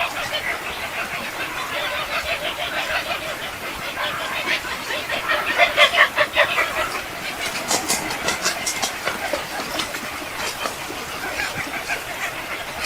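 A flock of birds chattering and chirping rapidly as they feed, busiest and loudest about six seconds in.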